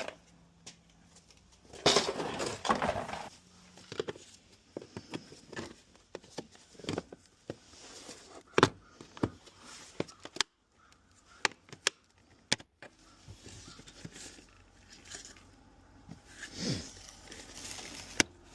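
Car floor mat being taken out of the footwell: a rustle about two seconds in, then scattered sharp plastic clicks and knocks as it is worked free of its retaining clips.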